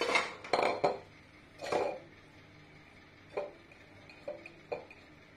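Clicks and knocks from handling an electric multicooker and its pot of soup: several loud clatters in the first two seconds, then three light ticks.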